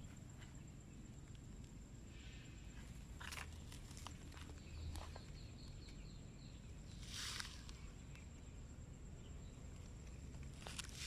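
Quiet outdoor background with a faint steady high-pitched whine, scattered clicks and a few brief rustles, the loudest about seven seconds in; no trimmer engine is running.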